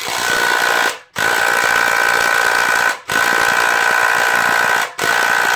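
Snap-on 3/8-inch 18-volt cordless impact wrench hammering on a nut in four trigger pulls with short pauses between, a steady whine under the rapid blows.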